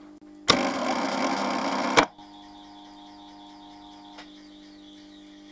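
A static phase converter's current-sensing coil switch clacks in as the lathe motor starts, putting the start capacitors in circuit. A loud buzz runs for about a second and a half while the motor runs up, and then the switch clacks out once the current drops. A steady hum of the lathe motor running on the converter follows.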